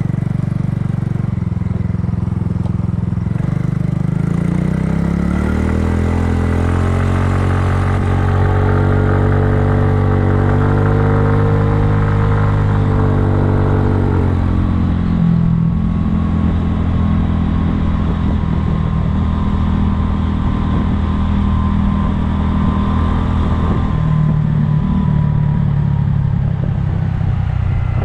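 Kymco People scooter engine under way. It climbs in pitch as it accelerates over several seconds and holds there. About halfway through it drops to a lower pitch as the throttle eases off, then runs on steadily.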